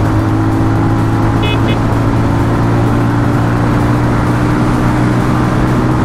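Benelli Leoncino 250's single-cylinder engine running steadily at highway speed, with wind rushing over the microphone. Two short high beeps about a second and a half in.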